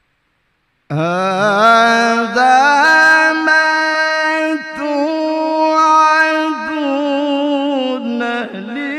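A male qari reciting the Quran in the melodic tilawah style into a microphone, starting about a second in. He draws out long, ornamented notes that climb in pitch at first and then hold high with a wavering ornament, broken briefly a few times.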